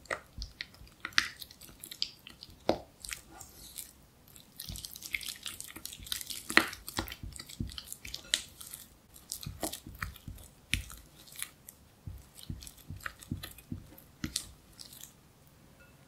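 Silicone spatula beating softened cream cheese in a glass bowl: soft wet squishing with irregular taps and scrapes of the spatula against the glass. It stops near the end.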